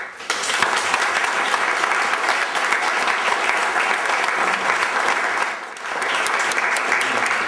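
Audience applauding, starting right away and going on steadily, with a brief lull just before six seconds before it picks up again.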